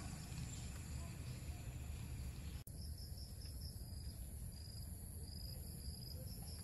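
Insects shrilling steadily at a high pitch over a steady low rumble, with a short high chirp repeating a few times a second after a brief break in the sound about two and a half seconds in.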